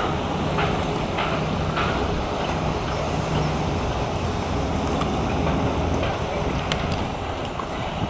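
Wind blowing across the microphone outdoors, a steady rushing rumble with no clear events.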